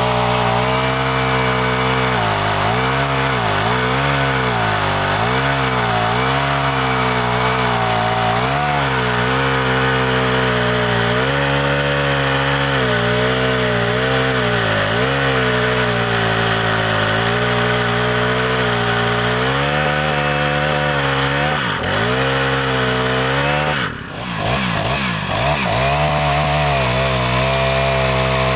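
49cc four-stroke Ferrex chainsaw running, its engine speed dipping and recovering about once a second, then holding steady. The sound drops briefly about three-quarters of the way through and comes back at a steady higher speed.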